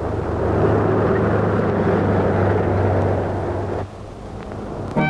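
A heavy engine running steadily with a low hum. It cuts off abruptly about four seconds in, and music begins at the very end.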